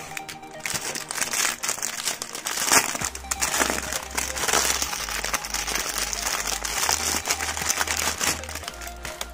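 Thin clear plastic packaging bag crinkling and rustling as it is pulled and handled by hand. Background music plays underneath, with a bass line coming in about three seconds in.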